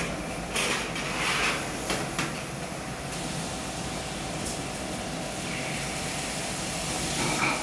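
Steady room hiss and hum, with a few brief clicks about a second in and again near the end.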